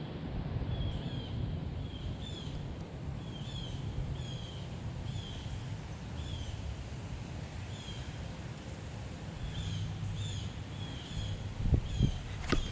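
A bird calling over and over, short high calls about once a second, over the low rumble of strong wind on the microphone. A few sharp knocks near the end.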